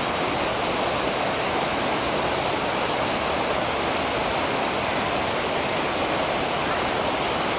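Stream water rushing over rocks, a steady even rush, with a thin steady high-pitched whine above it.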